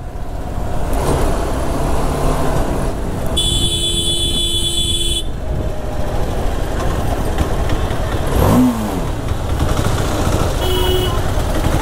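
Motorcycle riding through city traffic, its engine and road noise running steadily. A horn sounds for nearly two seconds about three and a half seconds in, an engine revs up and back down briefly about eight and a half seconds in, and a short horn beep comes near the end.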